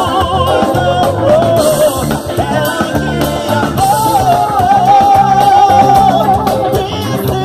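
Live band music with drum kit, bass, guitar and keyboards, and a lead melody line gliding and held above the band.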